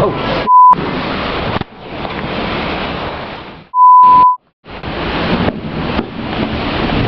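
Heavy storm rain and wind, a loud steady rush of noise. It is broken twice by a loud, pure electronic beep, short about half a second in and longer about four seconds in, each with a moment of dead silence around it.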